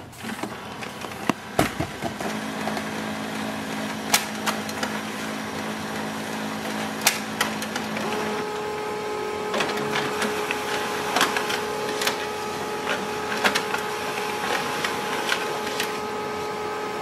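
HP LaserJet Pro MFP 3101fdw laser printer working through a two-sided copy: a steady mechanical whir of motors and rollers with scattered clicks and clunks. About eight seconds in the hum steps up to a higher, steady pitch.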